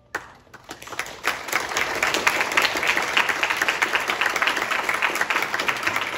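Audience applause: a first sharp clap, a few scattered claps, then dense steady clapping from about a second in.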